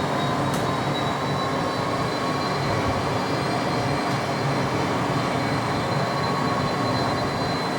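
McDonnell Douglas DC-10 jet engines running at takeoff power: a steady, even noise with a thin high whine held throughout.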